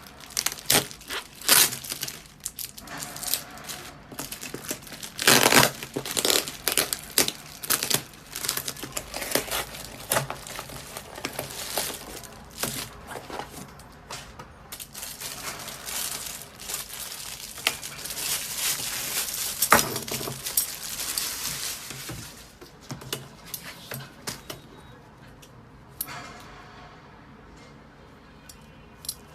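Packaging being handled and torn open by hand: irregular crinkling and rustling with sharp tearing strokes, busiest for most of the stretch and dying away near the end.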